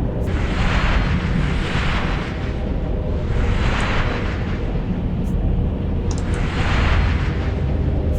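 Force-healing sound effect: a deep steady rumble under breathy whooshes that swell and fade every few seconds.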